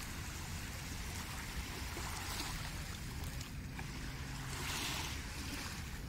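Small sea waves lapping and washing onto a sandy shore: a steady hiss of water that swells about five seconds in, over a constant low rumble.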